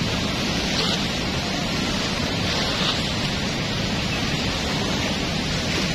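Steady rushing of a swollen, fast-flowing river, an even roar of water.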